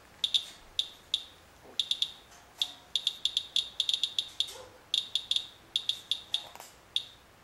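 Handheld S.E. International Inspector Geiger counter chirping at each detected count, about three to four a second at random, uneven spacing and sometimes in quick bunches. It is counting radiation from rain residue wiped off a truck hood, a reading the user puts at about eight or nine times normal background.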